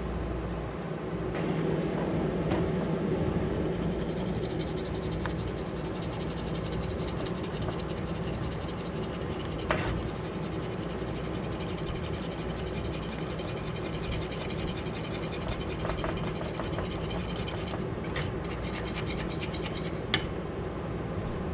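A spoon scraping and stirring in a saucepan, working peanut butter into a warm hoisin-based sauce, with a few light clicks of utensil on pan over a steady background hum.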